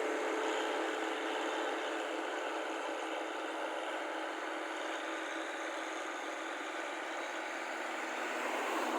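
Rice combine harvester engine running steadily with a continuous mechanical hum, swelling slightly near the end.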